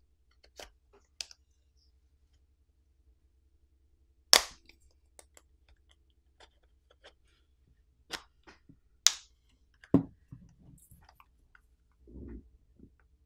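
Plastic clip catches of a smartphone's back housing snapping loose one by one as a plastic pry pick is worked along the seam: a series of sharp clicks and snaps, the loudest about four seconds in and several more close together near eight to ten seconds. A short rubbing of plastic follows near the end.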